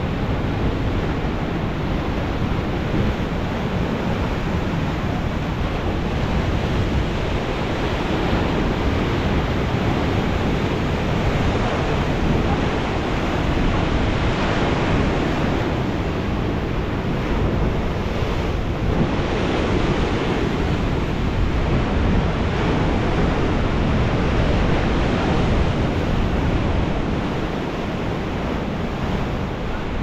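Storm surf breaking and washing up a sandy beach in a steady, loud rush, with wind buffeting the microphone.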